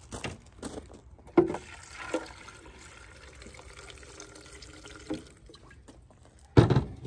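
Water being poured into a blender jar holding toasted chile seeds, sesame, peanuts and tostadas for mole, a steady filling sound. There is a sharp knock about a second and a half in and a louder thump near the end.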